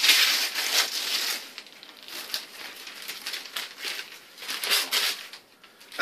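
Paper crinkling and rustling as a present is unwrapped, loudest in the first second and a half, then in softer, scattered bursts.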